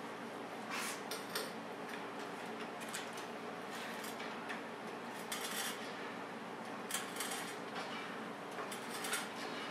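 Scattered light metallic clinks and short scrapes from a car jack and steel jack stands being handled and set under the car, over a faint steady hum.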